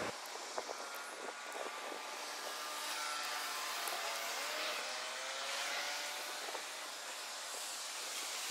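Tugboat engines working against a ferry's hull, sped up four times. They come out as a steady hiss with several high tones sliding up and down, and a few sharp clicks near the start.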